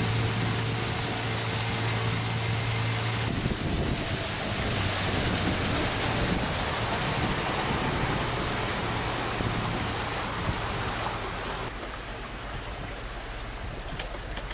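A boat's motor runs with a steady low hum for about the first three seconds, then gives way to a steady rushing noise of water and wind, which drops somewhat near the end.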